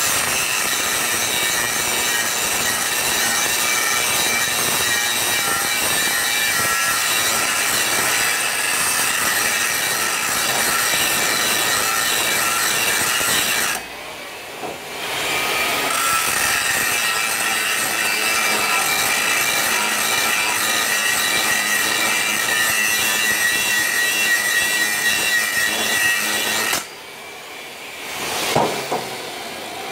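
TIG welding arc on 6-inch stainless steel pipe, running steadily with a hiss and buzz while the ceramic cup scrapes as it is walked along the joint. The arc stops for about two seconds near the middle and again near the end.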